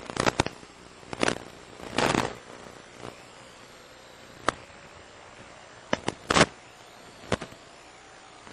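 Radio static on an analog FPV video link: a steady hiss broken by irregular crackles and pops, with longer bursts of crackle about two seconds in and again near six and a half seconds.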